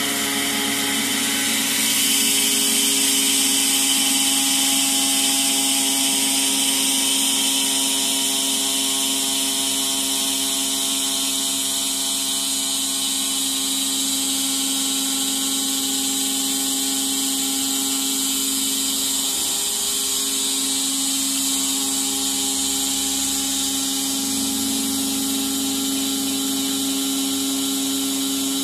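Transmission pressure-control (T.P.C.) test bench running with an automatic transmission mounted, during a hydraulic pressure test: a steady mechanical whine with a high hiss over it, getting a little louder about two seconds in.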